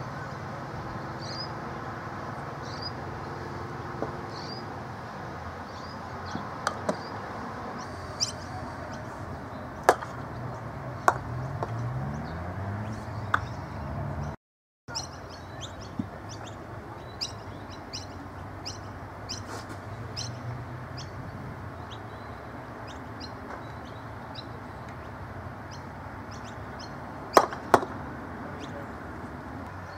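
Golf croquet mallets striking balls and balls knocking into one another: sharp single clicks at irregular intervals, with a quick pair of clicks near the end. Birds chirp repeatedly in the background, and the sound drops out briefly about halfway through.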